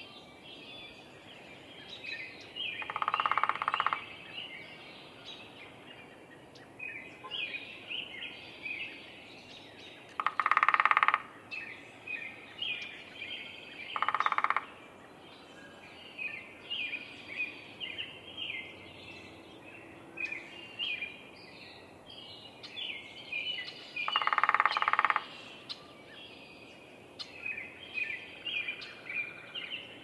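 Downy woodpecker drumming: four short, rapid rolls of bill strikes on wood, each about a second long or less, spaced several seconds apart. Other birds chirp in the background throughout.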